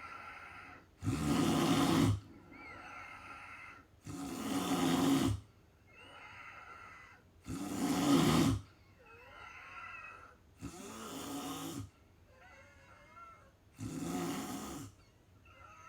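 A sleeping person snoring in a steady rhythm: five loud, rough snores about a second long, one every three seconds or so, with quieter breathing between them.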